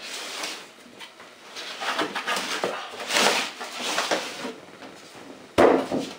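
Cardboard box and packaging being handled and rustled, with a loud knock about five and a half seconds in.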